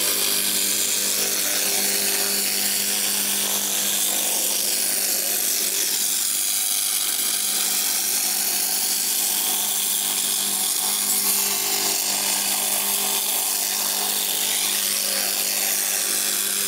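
JASIC WF-22L handheld fiber laser in cleaning mode stripping the oxide scale off black hot-rolled steel plate: a steady hissing crackle from the sparking surface, over a constant low hum.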